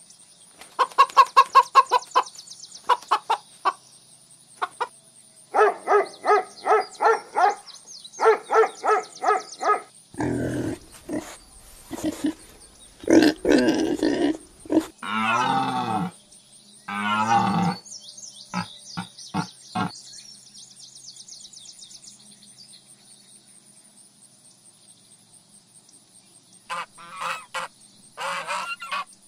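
A series of animal calls one after another: quick runs of short repeated calls, then several longer calls, a quiet stretch, and two more calls near the end.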